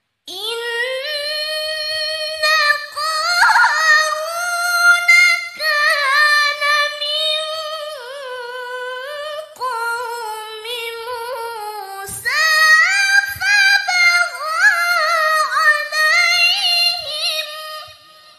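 A woman's solo Qur'an recitation (tilawah) in the melodic mujawwad style, chanted into a microphone. Long, high, ornamented phrases with quick melismatic turns; a new phrase begins after a short break about twelve seconds in, and the voice fades out near the end.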